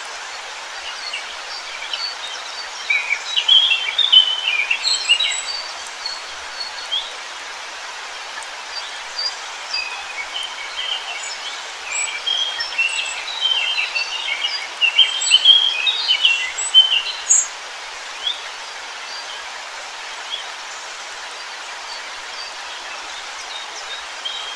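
Several songbirds chirping and singing in quick high notes over a steady rushing hiss; the birdsong is busiest in two spells, a few seconds in and again in the middle.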